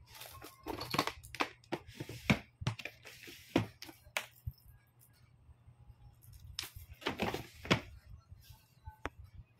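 Scattered clicks, knocks and rustling of objects being handled and rummaged through, with a quiet stretch in the middle and a denser cluster of knocks and rustling about seven seconds in.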